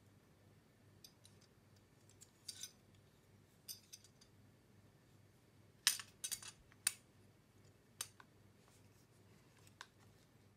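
Small clicks and brief scrapes of a SmallRig camera cage with a wooden side grip being handled and fitted onto a Sony ZV-1 camera, with a quick run of sharper clicks about six seconds in and a single click about two seconds later.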